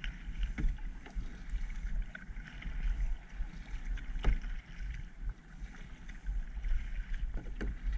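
Kayak paddle strokes dipping and splashing in the water: a few separate splashes, the loudest about halfway through and two close together near the end. Under them runs a steady low rumble of wind on the microphone.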